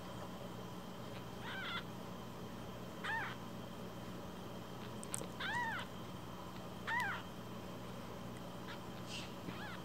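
Week-old kitten mewing: about five short, high-pitched mews a second or two apart, each rising and falling in pitch.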